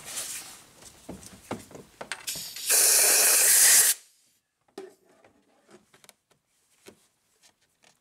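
A short blast of compressed air from an air blow gun, one steady hiss of just over a second that stops abruptly, with small clicks and taps of parts being handled before and after it.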